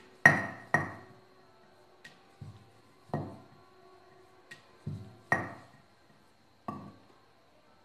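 Sharp knocks and clinks from rolling out dough: a wooden rolling pin and a marble rolling board knocking against each other and the counter. About nine hard taps come at uneven intervals, the loudest near the start and again about five seconds in.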